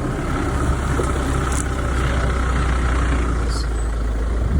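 Engine of a 4x4 running steadily at low speed, with a steady low rumble, heard from inside the vehicle.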